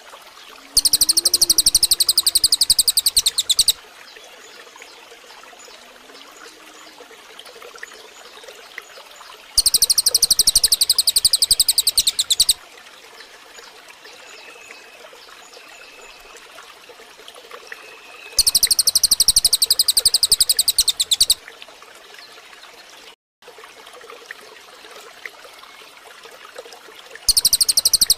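Loud, high-pitched rapid trill of a songbird, about three seconds long, repeated four times roughly every nine seconds. Between trills, a soft background of running stream water with faint distant bird notes.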